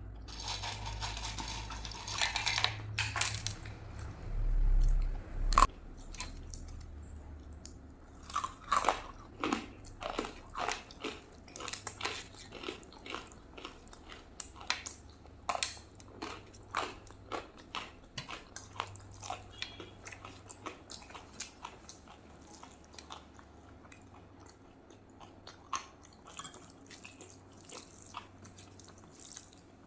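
Close-miked chewing of rice and curry: a steady run of short wet mouth clicks, about one or two a second, from about eight seconds in. Before that there is a brief hissy rustle and a low thump about five seconds in.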